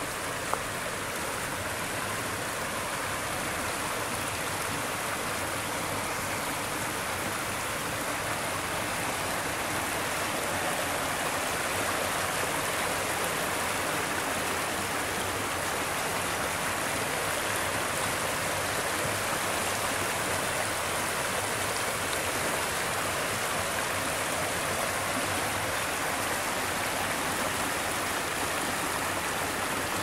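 Creek water spilling over a low concrete weir and rushing over rocks below it: a steady rush of water that grows a little louder over the first ten seconds or so. A single brief click about half a second in.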